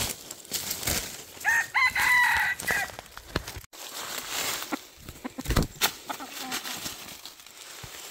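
A rooster crows once, a short crow about a second and a half in. Dry leaves and twigs crackle and snap around it.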